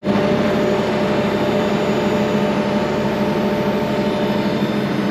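Heavy machinery engine running steadily at constant speed: a loud, even hum with several fixed pitches. It starts abruptly.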